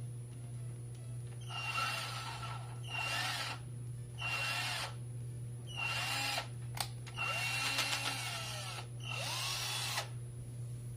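Philco PPF02MF drill-driver run in six short bursts, its motor whining up to speed and winding down each time.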